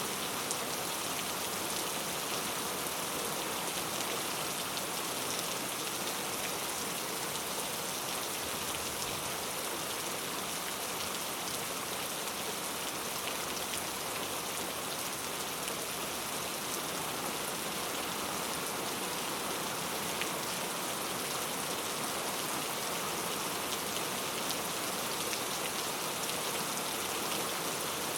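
Heavy rain falling steadily, a dense even hiss of drops with fine patter on a surface.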